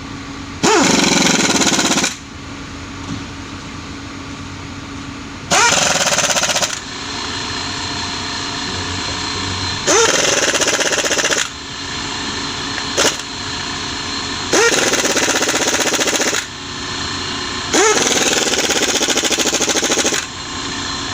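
Impact wrench hammering bolts in five rattling bursts of about a second and a half each, plus one short burst. Each burst starts with a quick rising whine as the tool spins up. A steady mechanical hum runs between the bursts.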